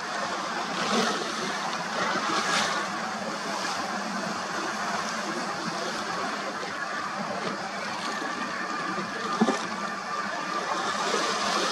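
Sea water lapping and sloshing with a steady rush of noise, swelling briefly now and then, and a single sharp knock about nine seconds in.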